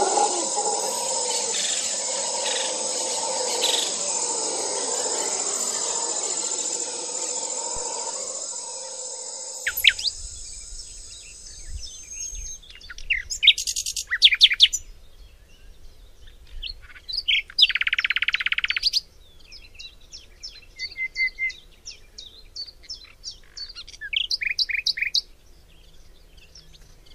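Birds chirping and calling, with quick sweeping notes, a rapid trill and a brief rasping call. For the first ten seconds or so a rushing noise and a steady high-pitched whine run underneath, then stop.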